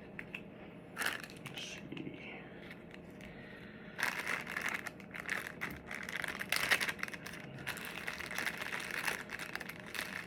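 Close crinkling and rustling of packaging and Velcro pads being handled and peeled, with a few small clicks at first, then dense and continuous from about four seconds in.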